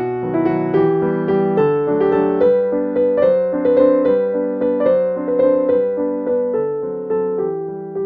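Background piano music: a slow melody of struck notes that ring and fade one after another.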